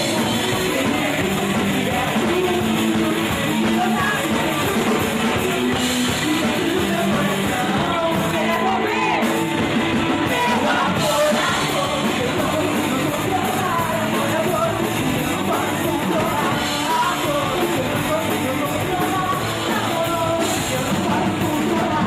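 Rock band playing a song: a singer over electric guitar and drums.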